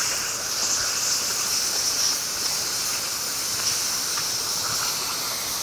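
Oxy-fuel cutting torch on a motorized circle-cutting machine, hissing steadily as its cutting jet bevels the edge of a thick steel plate ring.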